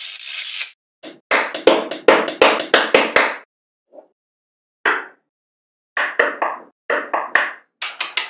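Small metal magnetic balls clicking and clacking as hands press, pull apart and snap rows of them together. A dense run of sharp clicks comes about a second in, then single clacks and short clusters of clicks with brief silences between.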